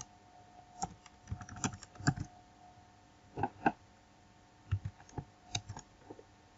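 Computer keyboard keystrokes and mouse clicks: a dozen or so short, sharp clicks in small clusters of two or three, spread over the few seconds.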